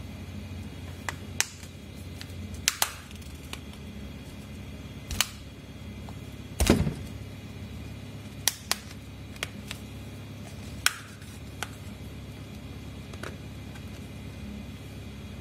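Scattered sharp clicks and taps from a Xiaomi Redmi 4A phone being handled: fingers and nails knocking on its metal back and frame, with one louder knock about halfway through, over a steady low hum.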